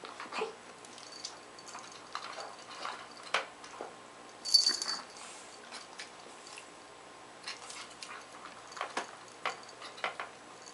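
Pug puppy eating from a stainless steel food bowl: irregular crunches and clicks of chewing and of food knocking the bowl, with a louder clink against the metal about four and a half seconds in.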